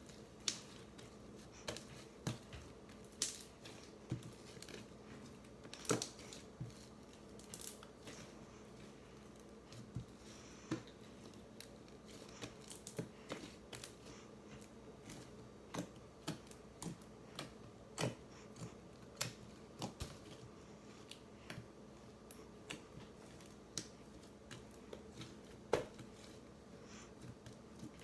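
Homemade slime being worked by hand: irregular sharp clicks and small pops, roughly one or two a second, over a faint steady hum.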